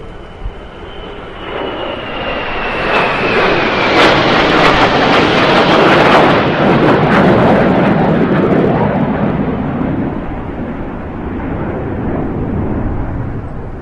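A loud engine-driven vehicle passing. A rushing engine noise builds to a peak about six seconds in and then slowly fades, with a faint high whine falling in pitch during the first few seconds.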